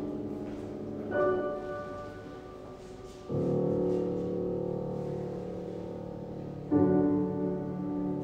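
Grand piano played solo in slow, held chords: a new chord is struck about a second in, a fuller, lower one just after three seconds, and another near seven seconds, each left ringing and slowly fading.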